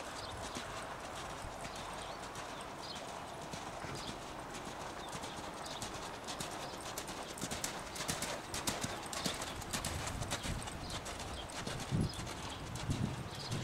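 Hoofbeats of a Clydesdale mare loping on arena sand, a running series of short hoof strikes.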